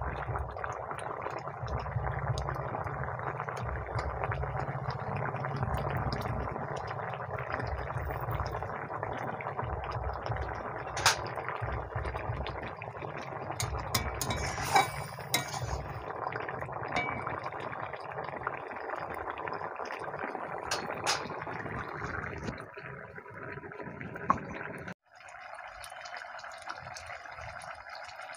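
Vegetable curry boiling in a metal kadai over a clay stove, a steady bubbling, with a few sharp clinks of a spatula against the pan and steel bowl. About three-quarters of the way in the bubbling cuts off abruptly, leaving a fainter hiss.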